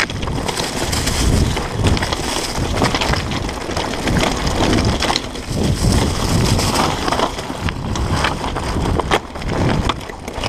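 Mountain bike riding fast down a rocky trail: tyres crunching over loose stones, and the bike clattering with frequent sharp knocks as it hits rocks and steps. Wind rumbles on the microphone throughout.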